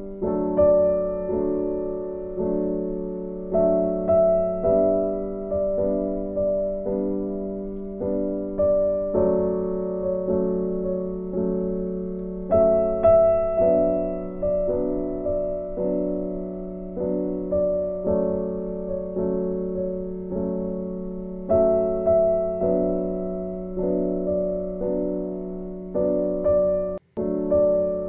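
Background piano music: notes struck about twice a second, each fading away, over held lower notes. The music cuts out briefly about a second before the end.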